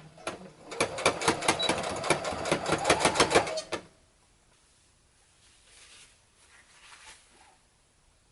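Sewing machine stitching a cuff seam in a rapid run of needle strokes for about three seconds, then stopping. Faint handling of fabric follows.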